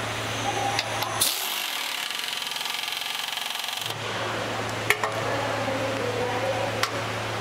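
Air-powered nut runner whirring for about two and a half seconds as it drives home the bolt holding the fuel tank's rear mount, over a steady workshop hum. A few light metal clicks follow as the chrome fuel cap is fitted to the tank.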